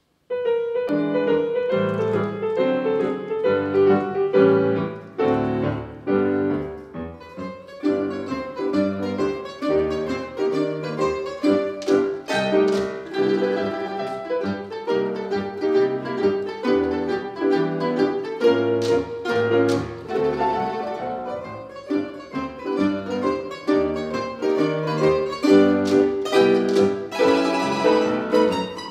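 Ensemble of domras, Russian plucked string instruments played with a plectrum, performing a piece of quick plucked notes with piano accompaniment. The music starts abruptly from silence.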